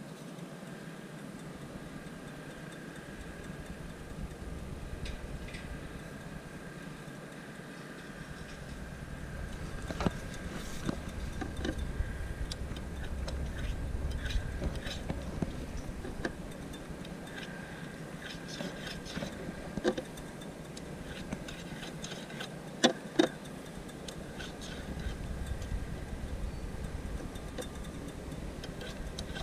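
Distant road traffic rumbling, swelling and fading, with a few sharp clicks and taps close by, the loudest a quick pair near the end.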